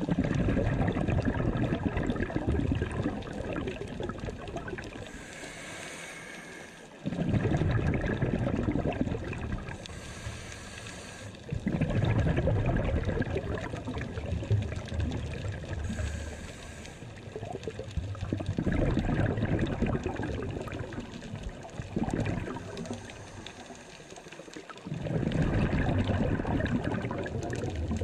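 Scuba diver breathing through a regulator underwater: five long bursts of exhaled bubbles gurgling past the housed camera, about every six seconds, with a faint hiss of the regulator on each inhale between them.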